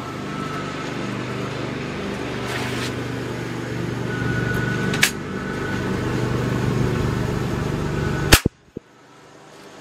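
.177 air rifle being readied, with a single latching click about five seconds in, then one sharp shot near the end as a pellet is fired over the chronograph. A steady low hum lies underneath until the shot.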